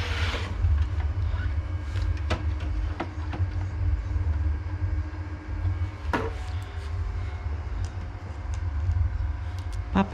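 Scattered light clicks and knocks of screws and metal computer-case parts being handled, over a steady low rumble.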